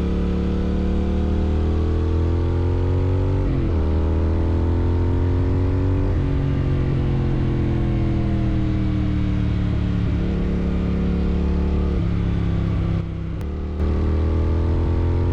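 Triumph Thruxton RS 1200 cc parallel-twin engine running through a Weslake exhaust with the dB killer removed, loud and open. The engine note climbs and falls, with several sudden steps in pitch and a brief drop in loudness near the end.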